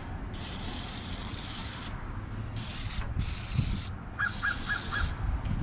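Aerosol can of oven cleaner (lye) sprayed onto greasy drum brake parts in about four hissing bursts, the first the longest. A bird chirps four short notes faintly near the end.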